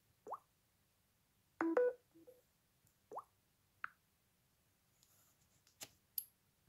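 Samsung Galaxy phone interface sounds: two short rising 'plop' taps, a louder brief chime of a few steady tones between them, then a few sharp clicks near the end.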